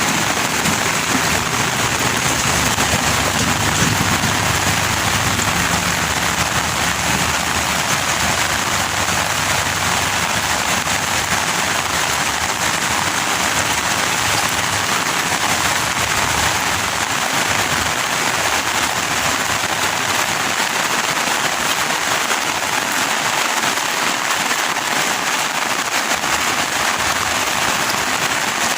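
Heavy rain falling steadily, a dense even hiss of downpour with a crackle of drops hitting surfaces.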